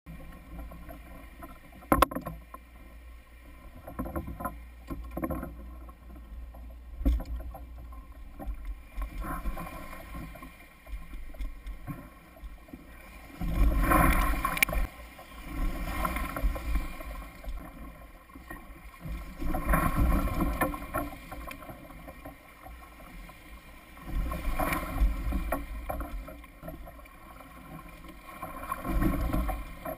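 Water sloshing and splashing against a kayak hull, rising in surges every five or six seconds, over a low wind rumble on the microphone. A sharp knock sounds about two seconds in.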